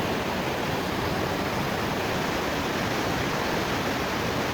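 Steady rushing of river water flowing under a bridge.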